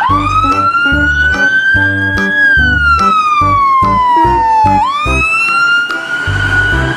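Wailing ambulance siren: one tone sliding slowly up, then down, then up again, over background music with a steady bass beat.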